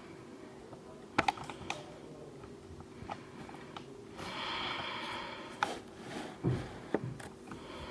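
Scattered sharp clicks and light knocks of objects being handled, with a rustle for about a second near the middle, over a faint steady hum.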